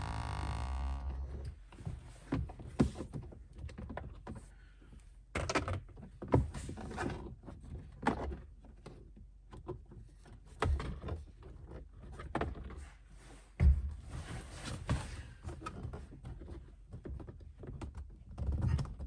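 Plastic dash trim and glove box of a pickup being worked back into place by hand: irregular knocks, clicks and thunks, the loudest near 3 seconds in and near 14 seconds in. The plastic is stiff from the cold. A short buzzing tone sounds during the first second.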